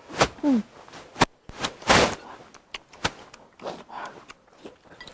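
Eating sounds: chopsticks clicking against a ceramic rice bowl and a metal food tray, a few sharp clicks spread out, with chewing in between.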